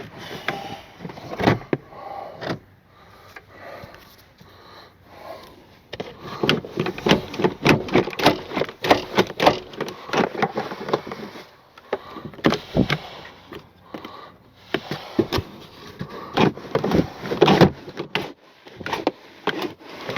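Car interior trim panel being pulled and worked loose by hand: a string of plastic knocks, clicks and scrapes, coming in two busy spells.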